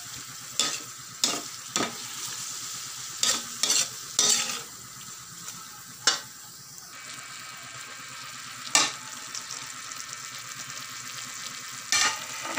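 Meat and mushrooms sizzling steadily in a frying pan while a spatula stirs them, scraping the pan in about nine sharp strokes at irregular intervals, from half a second to a few seconds apart.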